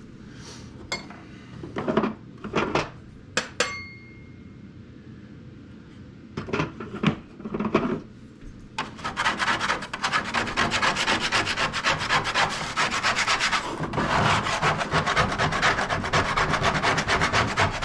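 A few separate knocks and clinks, then from about nine seconds in, steady fast scraping strokes as softened old felt and hide glue are worked off a Gerstner machinist tool chest drawer.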